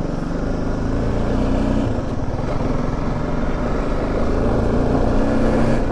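Motorcycle engine running steadily while riding along a loose gravel road, with tyre and road noise under the engine note.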